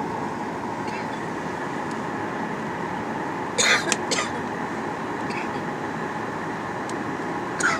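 Steady in-flight cabin noise of a Boeing 737-800, the hum of its CFM56 engines and rushing airflow, with a faint steady tone. Two short, sharp noises come about three and a half to four seconds in, and another near the end.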